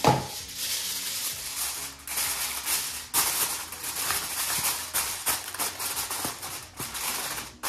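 Aluminium foil being torn off and crimped around a metal baking pan: continuous crinkling and crackling, with brief pauses about two and three seconds in.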